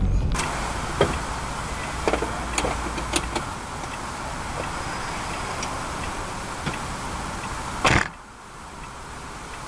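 In-cabin dashcam audio of a car waiting in stopped traffic: a steady hiss of engine and road noise with a few scattered light clicks, and one short loud thump near the end.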